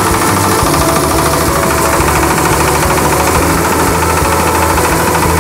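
Horizontal single-cylinder diesel engine running steadily under load with a fast even knock, driving a rice milling machine that is hulling and polishing paddy.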